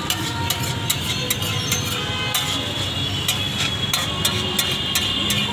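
Metal spatula clinking and scraping on a large iron tawa as tomato chaat is stirred and mashed, with irregular sharp clinks about three a second over a steady rumble of street traffic.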